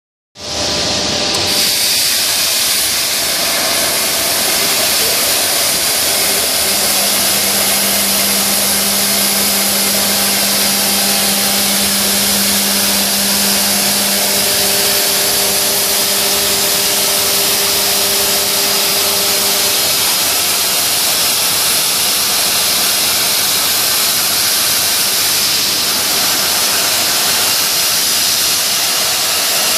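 Mini CNC machine running steadily, its spindle motor giving a constant whirring hiss with cutting noise. A fainter low hum joins in the middle and drops out again.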